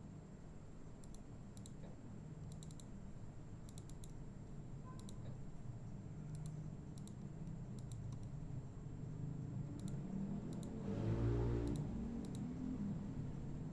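Light clicks of a computer mouse, single and in quick pairs, about a dozen in all, over a steady low hum. A louder low rumble swells and fades about eleven seconds in.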